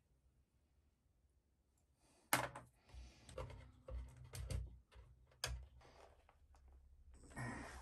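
Scattered light clicks and knocks of small metal engine parts being handled and set down, starting about two seconds in, with a short rustle of handling near the end.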